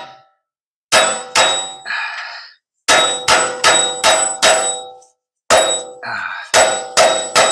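Hammer blows on steel, about a dozen sharp, loud strikes that ring out, coming in three bunches with short pauses between. A bolt is being driven into a snug hole in a lift-kit bracket.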